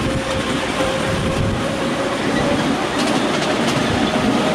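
Ride-on miniature railway train hauled by a BR class 31 miniature locomotive running along the track: a steady rumble of wheels on rail, with a thin steady whine that rises slightly about three seconds in.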